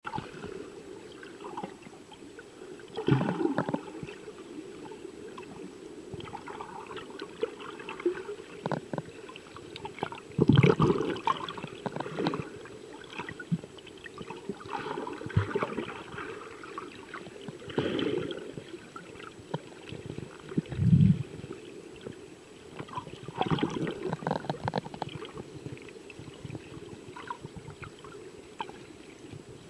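Muffled underwater water noise as heard by a submerged camera: a steady low wash with gurgling, broken by irregular louder surges and knocks every few seconds.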